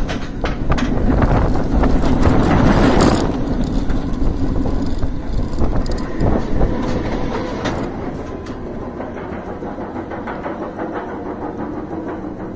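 Bolliger & Mabillard floorless coaster train running on its steel track: a loud rumble of wheels with frequent knocks and rattles, loudest in the first few seconds. It then settles to a steadier, quieter running noise as the train heads onto the lift hill.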